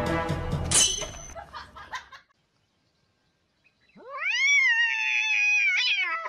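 A domestic cat's single long, drawn-out yowl, about three seconds long, rising in pitch at the start, holding, then falling away. Before it, background music with a sharp hit fades out about two seconds in.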